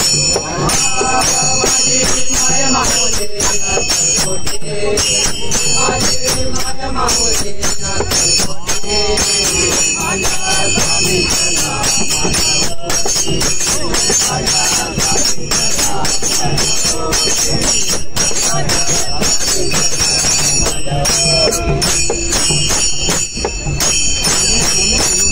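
Men singing a devotional bhajan together to a steady beat of small brass hand cymbals (tal), whose bright ringing carries throughout, with hand-drum and jingle accompaniment.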